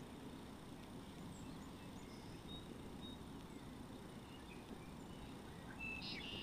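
Faint outdoor ambience: a steady low rumble with scattered faint, short, high bird chirps, and a slightly louder bird call just before the end.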